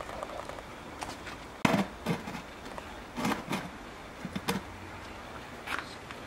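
Stone blocks being set down and shifted on soil: a handful of dull knocks and scrapes, the loudest about one and a half seconds in.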